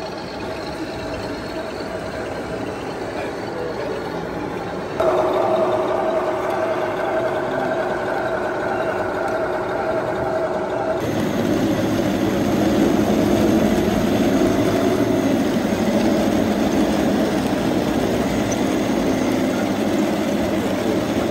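Engine sounds from scale RC tanks, played by their sound modules, running steadily at idle. The sound changes abruptly about five and again about eleven seconds in.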